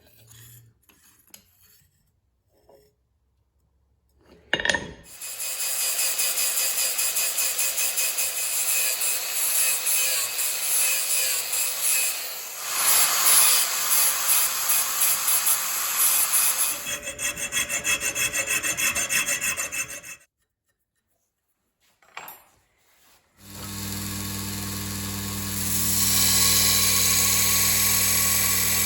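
Rapid scraping or rasping strokes of a hand tool working steel, for about fifteen seconds. After a short pause an electric grinder motor starts and runs steadily.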